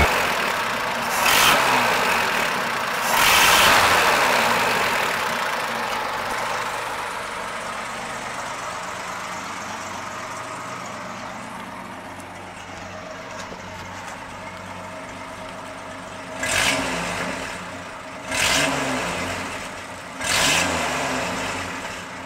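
Inline six-cylinder engine of a 1952 International L-110 pickup, blipped twice and settling to a steady idle, then revved three more times about two seconds apart near the end.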